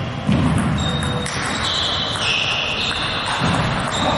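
Echoing sports-hall noise around table tennis play: two dull thuds, about a third of a second in and again near the end, and short high squeaks in the middle.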